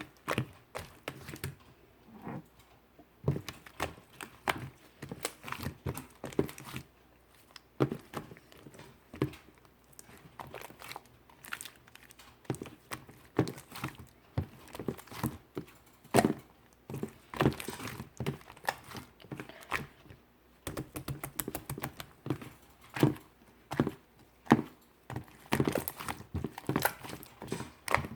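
Slime being squeezed, folded and poked by hand, making a run of irregular sticky clicks and small pops.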